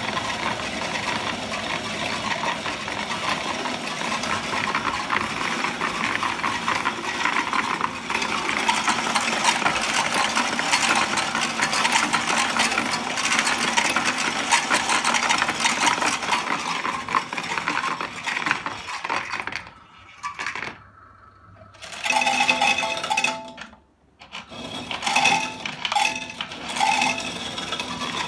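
Cashmax Procoin CMX30 coin counting machine running coins through, a dense continuous rattle of coins. The rattle stops about 20 seconds in, then comes back in two shorter bursts.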